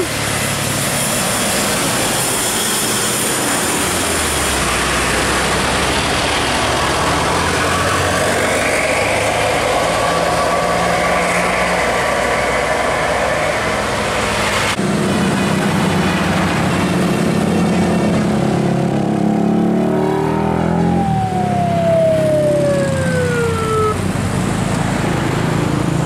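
Passing road traffic: large tour coaches and motorcycles driving by, with steady engine and tyre noise. Near the end, a tone slides down in pitch over a few seconds.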